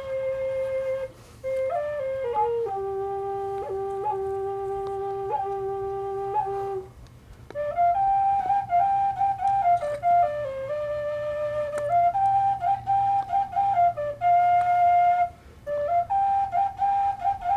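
Solo flute playing a slow melody of long held notes, with short breaks about a second in and near the middle, moving through quicker notes in the second half.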